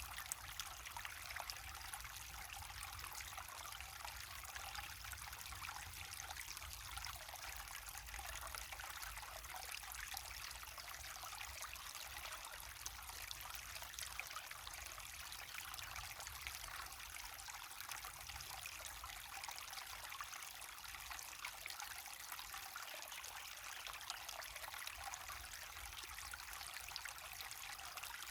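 Waterfall on a river, water rushing and splashing steadily, with a low rumble underneath.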